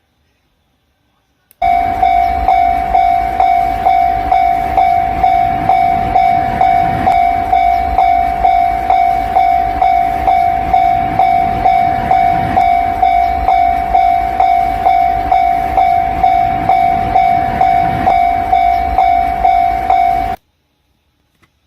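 Japanese-style railway level-crossing warning sound: a steady ringing ding repeating about two and a half times a second. It starts about a second and a half in and cuts off suddenly near the end.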